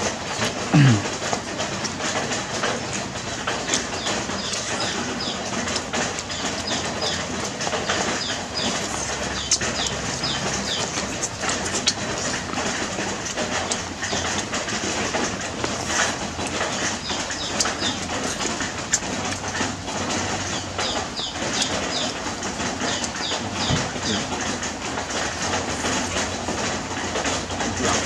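Steady, dense background ambience full of many short, high chirps, with scattered light clicks and taps. A short low falling sound about a second in is the loudest moment.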